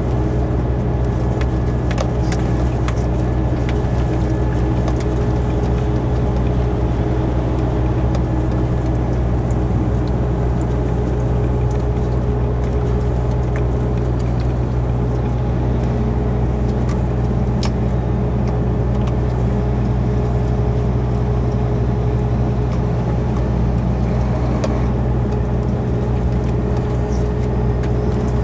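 Semi-truck's diesel engine droning steadily at cruising speed, heard inside the cab together with tyre and road noise, with a few faint clicks and rattles from the cab.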